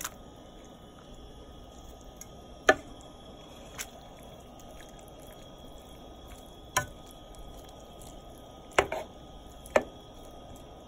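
Frozen ground pork being turned in a pot of hot broth: wet squishing and dripping, with about six sharp clicks of the utensil against the pot, the loudest about three seconds in.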